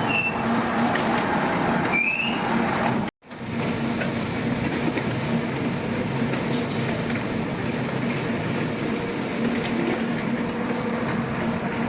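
QT4-15 automatic concrete block machine running: a dense, steady mechanical clatter with a low hum, and two short rising squeaks in the first two seconds. The sound drops out abruptly for a moment about three seconds in, then carries on.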